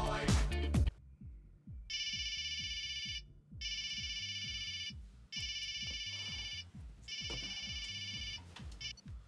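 Music cuts off about a second in, then a telephone rings: four rings of about a second and a half each with short gaps, and a fifth cut short near the end.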